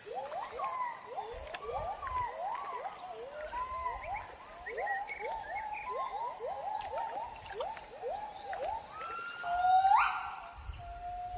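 Gibbon song: a long run of whooping notes that slide up and down in pitch, about two to three a second, building to a louder, longer call about ten seconds in.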